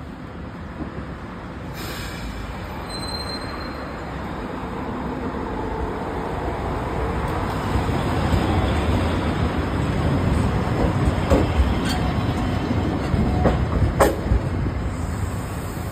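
Toyohashi city tram running close by on its rails, a rumble that grows steadily louder, with a few sharp metallic clanks late on, the loudest about two seconds before the end.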